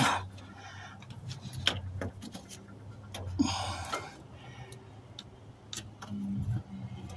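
Small scattered clicks and taps of metal and plastic as a hand works at the fuel line quick-connect fitting on top of a truck's in-tank fuel pump module. A low steady hum runs underneath.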